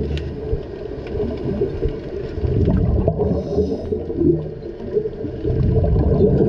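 Muffled underwater rumble and gurgling from scuba divers' regulator exhaust bubbles, picked up by a submerged camera.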